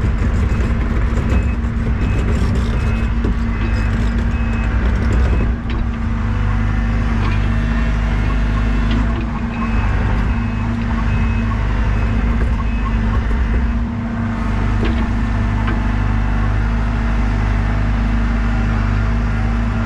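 Diesel engine of a piece of construction equipment running steadily under load, with its level dipping briefly about five seconds in. A short repeated high beep sounds near the start and again midway.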